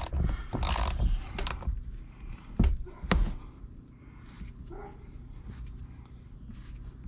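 Hand ratchet with a 10 mm socket working a tight, threadlocker-set bolt on an aluminium differential case: a burst of ratchet clicking in the first second, then single sharp clicks around two and a half and three seconds in.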